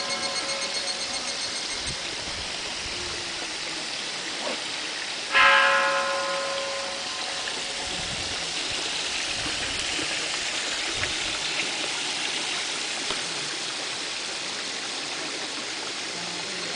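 Steady trickle of water running in the offering channel in front of the statues. About five seconds in, a bell is struck once, ringing out and fading over a second or so.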